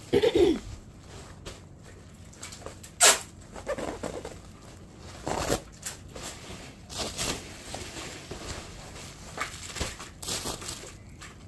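Plastic bubble wrap sheets being handled and spread out, rustling and crinkling, with sharp crackles at irregular moments, the loudest about three seconds in.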